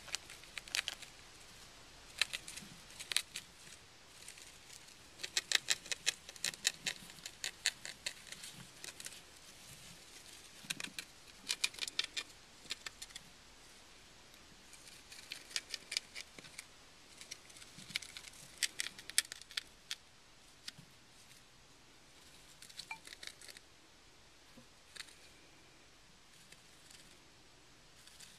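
Gerbils gnawing cardboard with their teeth: runs of rapid, crisp clicks a second or two long, separated by short pauses.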